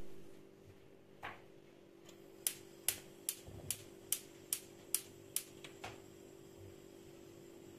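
Gas hob's spark igniter clicking rapidly, about two and a half clicks a second for some three seconds, as the burner knob is held in to light the burner. A knock at the very start as the pot is set down on the burner grate.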